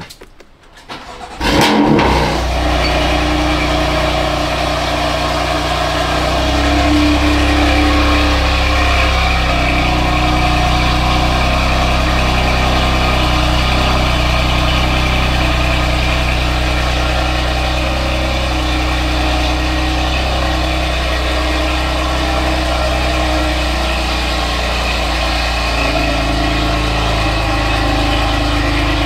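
A car engine starting about a second and a half in, then running steadily and loudly at idle, a little louder from about six seconds in.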